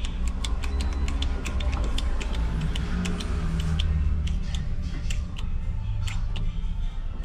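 Hand hydraulic crimping tool being pumped: a run of quick, uneven clicks, about three or four a second, over a low rumble.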